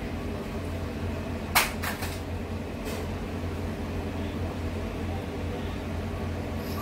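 A steady low hum with a few sharp clicks or knocks, the loudest about a second and a half in, a quick pair just after it and one more about three seconds in.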